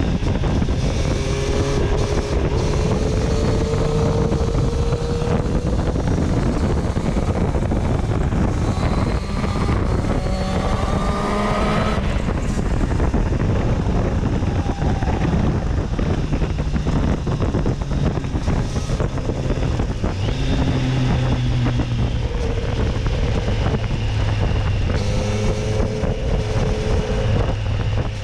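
Triumph Street Triple's inline three-cylinder engine running under way, heard with wind noise on the helmet microphone. Its pitch climbs as the bike accelerates from about nine seconds in, then drops at a gear change around twelve seconds.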